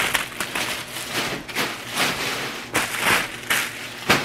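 Clear plastic wrapping on flower bouquets crinkling and rustling in irregular bursts as the bouquets are handled and set into a cardboard box.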